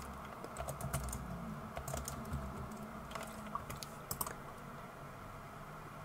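Computer keyboard typing: a run of quick, uneven key clicks that stops after about four seconds.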